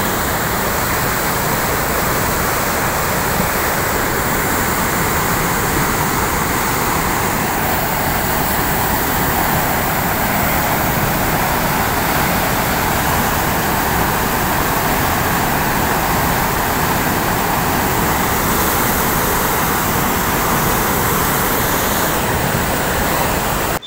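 Floodwater from an overflowing dam rushing and churning over a rocky ledge: a steady, even rush of water noise.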